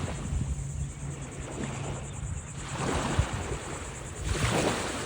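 Ocean surf washing onto the beach, with wind buffeting the microphone; a louder wave surges in about four and a half seconds in.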